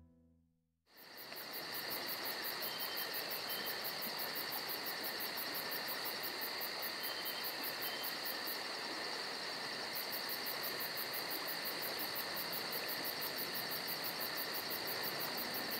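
Insects chirring steadily with a fast, even pulse, starting about a second in.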